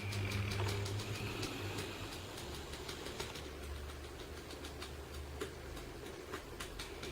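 English mastiff snoring: a low, buzzy snore in the first second, then a deeper rumbling snore from a few seconds in until near the end.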